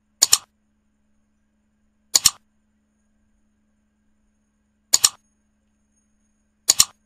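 Mouse-click sound effects: four sharp double clicks about two seconds apart, with a faint steady hum between them.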